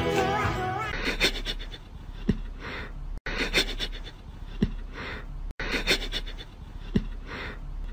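Music stops about a second in. After that, soft breathy huffs come roughly once a second, with a few faint clicks between them.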